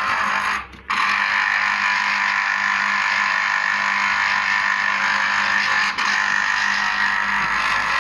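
Electric blender motor running steadily as it grinds an orange, with a brief break just under a second in.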